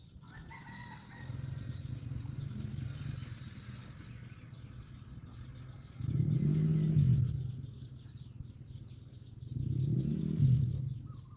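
A low engine drone that swells twice in rising-then-falling surges, with small birds chirping over it.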